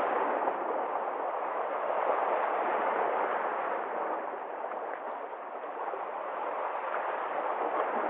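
Sea waves breaking and washing over algae-covered shore rocks: a steady rush of surf that eases a little in the middle and builds again near the end.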